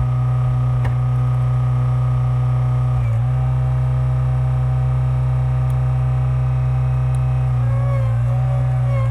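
Skid steer engine running steadily at high revs, driving a hydraulic log splitter attachment, with a steady low drone. Its pitch dips briefly twice, about three seconds in and near the end.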